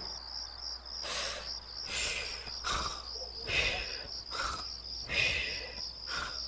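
Crickets chirping in a steady, fast-pulsing high trill, with a soft rustling swell about every second.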